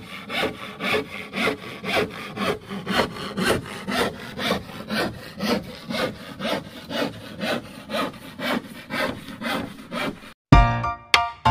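Handsaw cutting through a sheet of film-faced plywood formwork board in steady back-and-forth strokes, about two a second. The sawing cuts off suddenly near the end and music begins.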